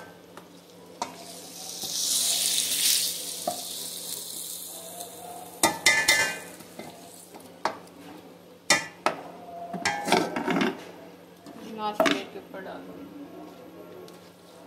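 Wooden spoon stirring and scraping stir-fried vegetables in a wok, with a burst of sizzling about two seconds in and several sharp knocks of the spoon against the pans as the vegetables are scooped into the spaghetti pot.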